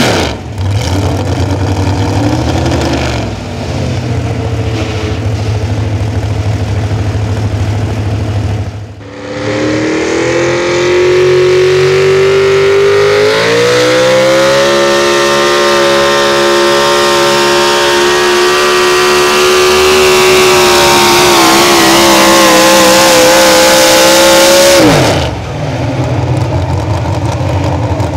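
Super Stock 4x4 pulling truck engine: low, steady running at first, then after a short break it revs up and holds at full throttle under the load of the pulling sled, pitch creeping higher through the long pull. Near the end it is let off abruptly and drops to a low idle.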